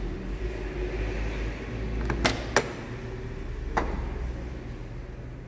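Cab door of a 1985 Volkswagen Kombi being opened: the chrome push-button handle and latch give a few sharp metallic clicks, two close together a little over two seconds in and another just before four seconds, over a low steady hum.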